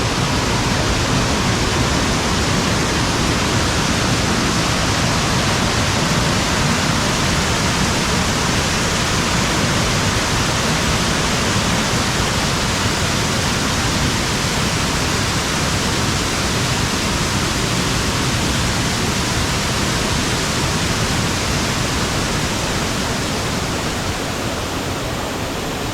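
Waterfall: water pouring over the rocks of the falls in a loud, steady rush, getting slightly quieter near the end.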